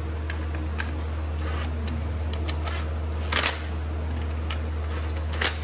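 Cordless power driver run in short, slow pulses, drawing the transmission filter's bolts up so its O-ring seats evenly in the valve body: brief high-pitched whines, with two louder short bursts about three and a half and five and a half seconds in, over a steady low hum.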